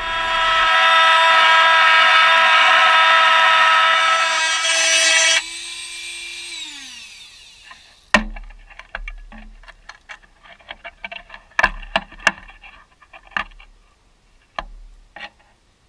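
Angle grinder with a cut-off disc cutting through the rusted sheet steel of a VW bus's lower rear quarter panel: a loud, high, steady whine that stops about five seconds in and winds down over a second or two. Then a series of sharp metallic clicks and knocks as the cut-out piece of panel is worked loose.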